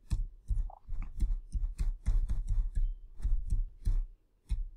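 Computer keyboard being typed on: a quick, uneven run of sharp key clicks, about a dozen keystrokes in a few seconds.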